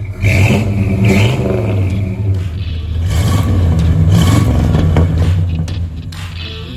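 Classic American car engines revving through their exhausts over a rumbling idle, with the sound changing about two seconds in as a second car takes over.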